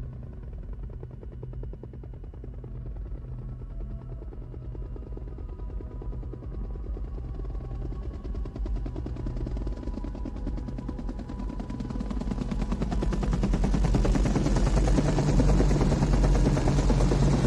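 Bell UH-1 Huey helicopters approaching: a fast, steady rotor chop that grows much louder over the last several seconds as they close in. Quiet held music tones sit underneath.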